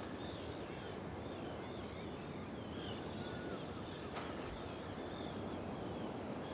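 Steady low outdoor rumble of wind and water, with faint high chirping throughout and one sharp click about four seconds in.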